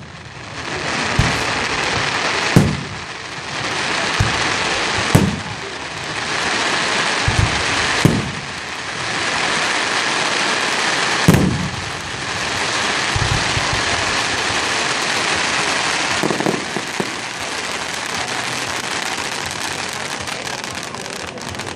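Aerial fireworks shells bursting with four sharp booms a few seconds apart in the first half. A continuous hissing crackle from the showers of glittering stars fills the gaps and carries on through the second half.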